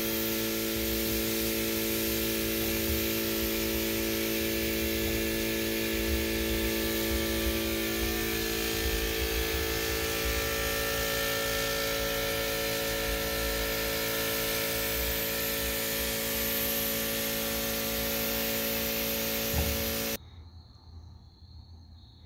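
Steady hum of an air compressor under the hiss of an HVLP-type paint spray gun laying on a second coat of single stage automotive paint. Both stop abruptly about 20 seconds in.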